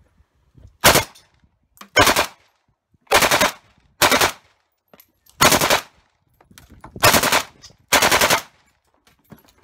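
Kalashnikov-pattern automatic rifle firing seven short full-auto bursts, about one a second, each a quick rattle of a few rounds.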